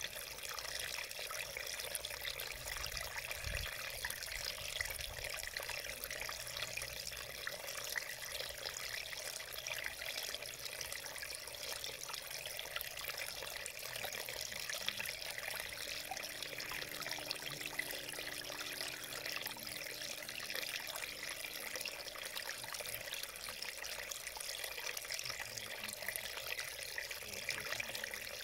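Shallow mountain stream running over rocks: a steady, even rush and ripple of water.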